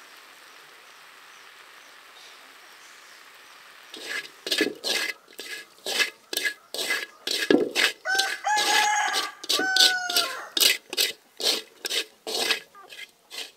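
Chickens clucking in a quick run of short calls starting about four seconds in, with a rooster crowing in the middle, a drawn-out call. Before that only a faint steady hiss.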